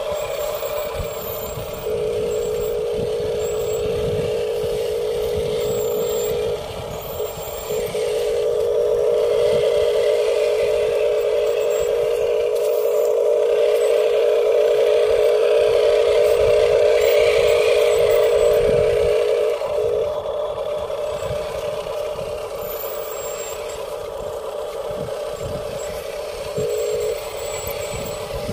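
Radio-controlled dump truck driving with a steady motor whine that cuts out briefly a few times and grows louder for a while in the middle.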